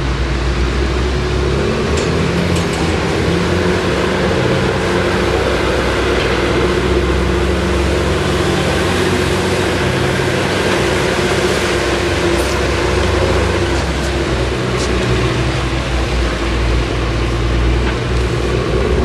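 Komatsu D61PX crawler bulldozer's diesel engine running steadily while grading, with its pitch shifting a little and a few faint clicks.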